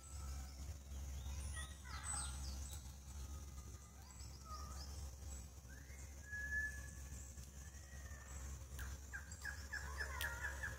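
Songbirds calling over a steady low rumble. There are scattered chirps and short falling notes at first, a clear whistle a little past halfway, and a quick run of notes near the end.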